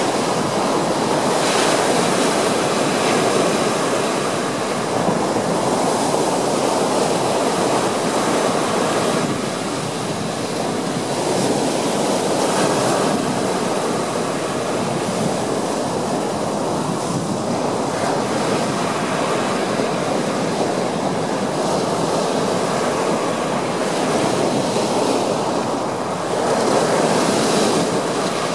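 Surf breaking close in and washing up a sandy beach: a continuous rush of foaming water that swells every few seconds as each wave breaks.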